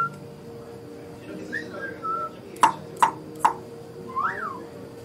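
Three sharp taps about half a second apart, with short whistled notes before them and one rising-then-falling whistle near the end.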